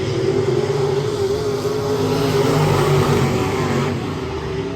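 Race car engine running hard at high revs, growing louder to a peak about three seconds in, then easing off near the end.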